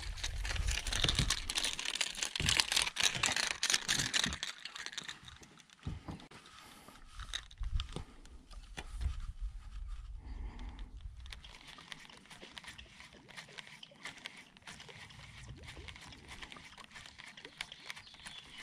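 A hooked bass splashing at the surface as it is reeled to the boat, with wind rumbling on the microphone for the first five seconds or so. Then quieter rustling and clicking as the fish is handled and unhooked and the reel is worked again.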